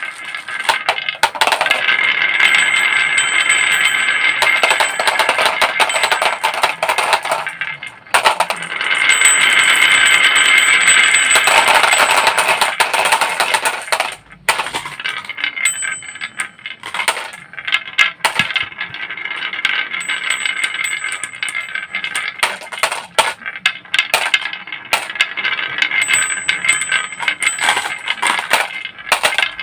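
Toy vehicles rolling and clattering down a wooden slide: two long stretches of continuous rolling rattle in the first half, then scattered clicks and knocks of the toys bumping and landing.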